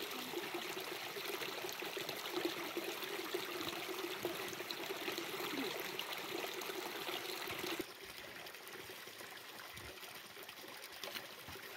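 Water pouring from the end of a black plastic pipe onto rocks and running in a shallow stream, a steady trickle. About eight seconds in the sound drops suddenly to a fainter background.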